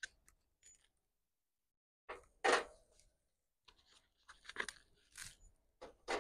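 Raw burger patties being handled and set down on a small charcoal grill's wire grate: one short rustling tear about two and a half seconds in, then a run of soft rustles and light taps.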